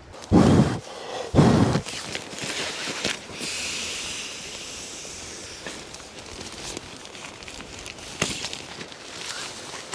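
Nylon stuff sack rustling as a sleeping mat is pulled out of it and handled, over the steady rush of a shallow stream. Two loud low buffets of wind or handling noise come in the first two seconds.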